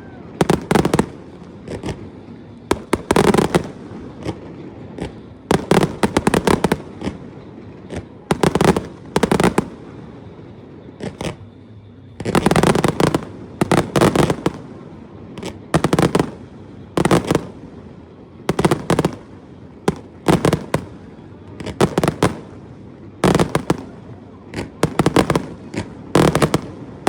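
Aerial fireworks bursting: sharp bangs, often several in quick succession, about every second or two.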